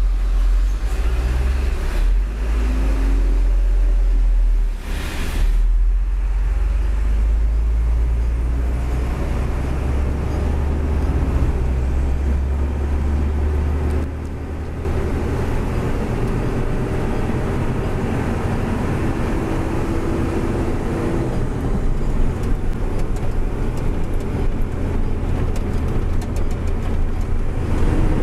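Hino 500 truck's diesel engine running with road noise, heard from inside the cab while driving. The deep engine rumble dips briefly about five seconds in and gives way to a lighter, steadier road noise about halfway through.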